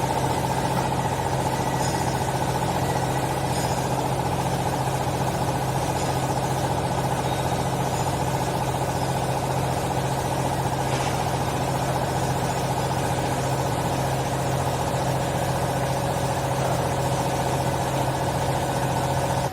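Hydraulic baler's power pack running steadily: a loud, even machine hum from the electric motor and hydraulic pump, which cuts off abruptly at the end.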